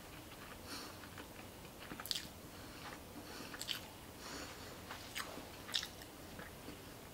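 A person chewing a mouthful of chu toro (medium-fatty tuna) sushi, with faint wet mouth clicks and lip smacks, a few of them sharper than the rest.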